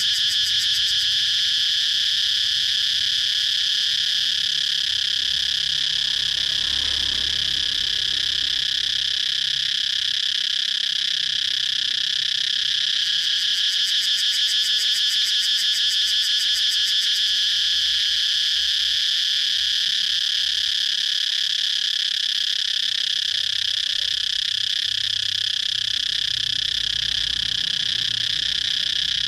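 Cicada chirping: a continuous, steady, high-pitched buzz made of very rapid pulses.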